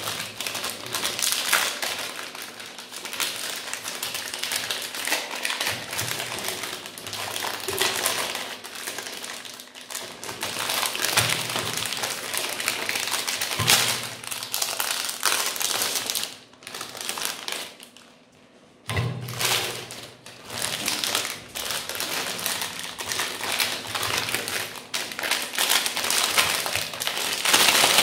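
Magnum Double ice cream bar wrappers crinkling and tearing as hands peel them open, with irregular crackling and occasional taps, pausing briefly about two-thirds through.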